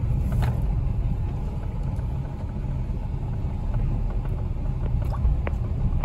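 Low, steady rumble of a Nissan Magnite compact SUV heard from inside the cabin as it creeps along at walking pace, with a couple of faint clicks.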